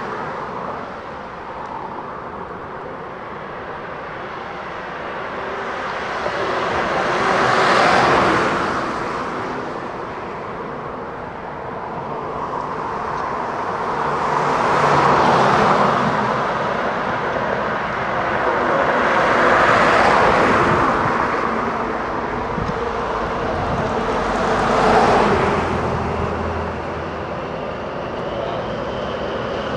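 Trenord DE 520 diesel-electric locomotive with two coaches approaching slowly, its diesel engine running with a steady drone. Road vehicles go by four times, each one swelling and then fading.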